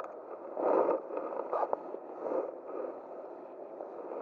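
Steady rush of a small river's flowing water. Over it come a few short rustling scrapes in the first two and a half seconds, the loudest about three-quarters of a second in.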